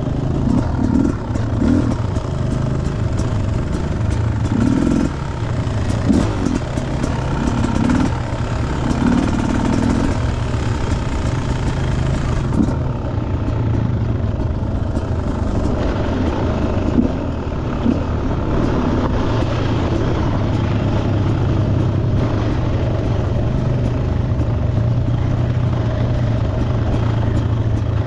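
Dirt bike engine running at a steady, even speed, heard from on board the bike, with knocks and rattles from the rough dirt track over the first ten seconds or so.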